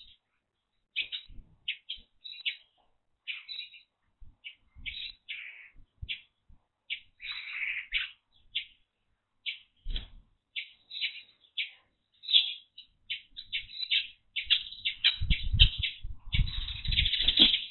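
Small songbirds chirping, many short notes in quick succession that grow denser near the end, with some low noise in the last few seconds.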